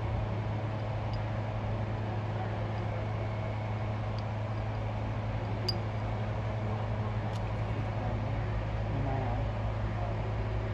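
A steady low mechanical hum, with two light sharp clicks a second and a half apart in its second half.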